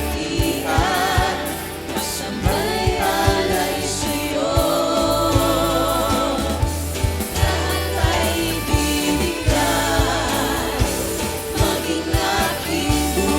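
Live worship band and singers performing a song: several voices singing over bass and a steady drum beat.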